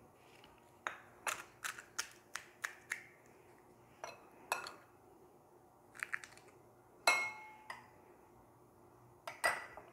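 Crisp hollow golgappa shells cracking as they are broken open, a quick run of sharp cracks in the first few seconds. A spoon then clinks against steel and ceramic bowls, with two louder clinks that ring briefly, about seven seconds in and near the end.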